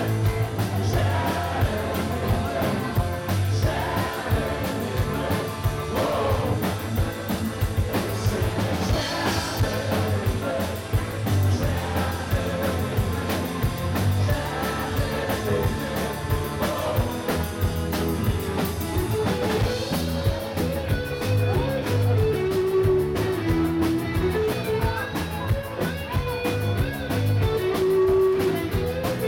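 Live rock band playing: drum kit keeping a steady beat, electric guitars, and a sung lead vocal.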